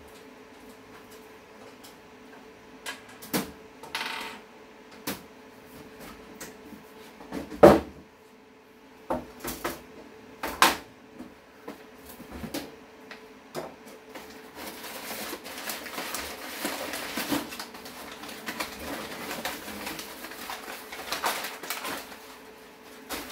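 Unpacking a new tower PC case: clicks and sharp knocks as its metal side panel is taken off and laid on the table, the loudest about seven and a half seconds in, then several seconds of crinkling as packing paper is pulled out from inside the case.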